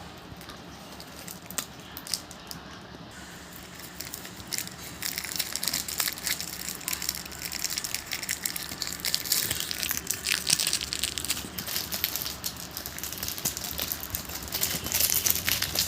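Packaging being handled and unwrapped, with irregular crinkling and crackling that gets busier and louder after about four seconds in.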